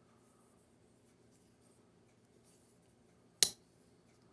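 Near silence, broken once by a single sharp click about three and a half seconds in that dies away quickly.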